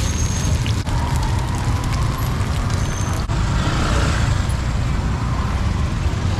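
Road traffic noise: a steady, loud rumble of passing vehicles.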